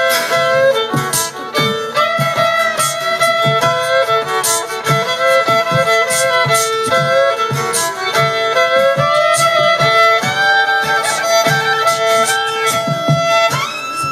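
Live fiddle playing a melody of long held notes with slides between them, over guitar and a steady percussive beat.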